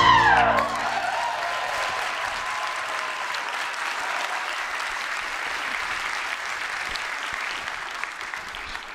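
Audience applauding at the end of a clogging routine, a steady clatter of clapping that starts to die away near the end. The music's last note fades out in the first second.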